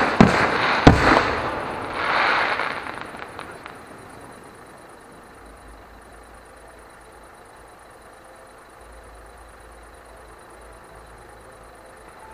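Fireworks going off: a few sharp bangs in the first second, then a rush of crackling about two seconds in that fades out by about four seconds, leaving only a faint steady hiss.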